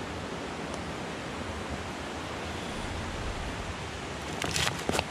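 Steady rushing of a mountain river, with a few short clicks about four and a half seconds in.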